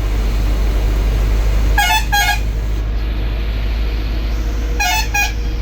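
Bus horn giving two pairs of short, high toots about three seconds apart, over the steady low rumble of the bus's engine and road noise.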